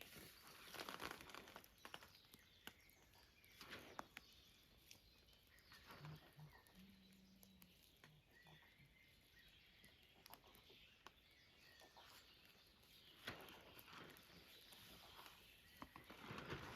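Near silence: faint outdoor ambience with scattered light clicks and a few soft rustles.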